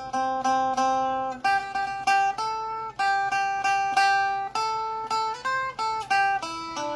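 Phin, the Thai Isan lute, plucked in a melody: each note is picked several times in quick, even succession before the tune moves to the next pitch.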